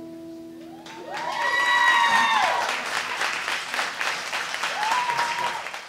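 An acoustic guitar's last notes ring out and fade. About a second in, an audience breaks into applause, with a whooping cheer over the clapping and another near the end.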